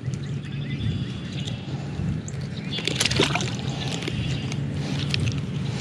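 Swamp water splashing and sloshing as a hooked northern snakehead is clamped with a fish lip gripper and pulled up out of the water, with a cluster of sharp splashes about three seconds in.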